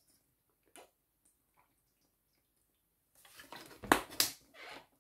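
A person taking a drink: mostly quiet at first, then about three seconds in a run of sips and swallows with wet liquid sounds and two sharp clicks.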